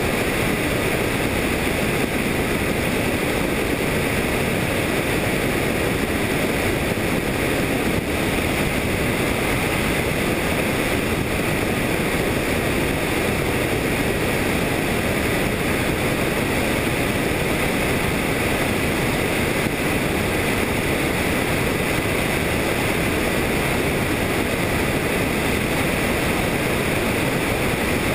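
Helicopter in flight, heard from on board: a loud, steady rush of rotor, engine and wind noise that stays even throughout.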